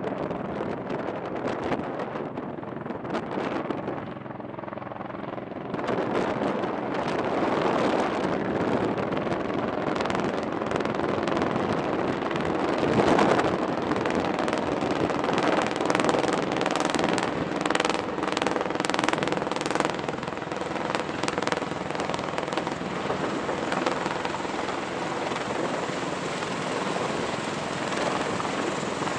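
V-22 Osprey tiltrotors hovering and coming in to land, their big proprotors making a steady heavy rotor noise that grows louder about six seconds in as the nearest aircraft closes in and descends.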